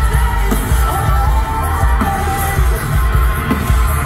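Live alt-rock band with a female lead singer playing through a large outdoor PA, heavy bass and a steady drum beat under the vocal, heard from among the crowd.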